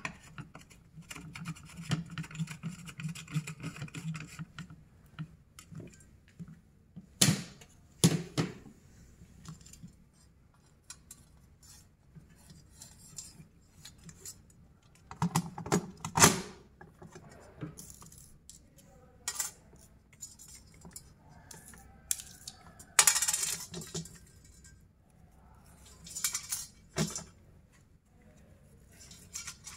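Small metal parts being handled, clinking and knocking, in several separate short clatters a few seconds apart.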